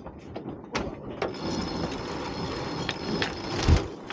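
Sailing yacht's sheet winch being worked during a tack: a few sharp ratchet clicks, then a steady rushing whir of line for about two and a half seconds, ending in a heavy thump near the end.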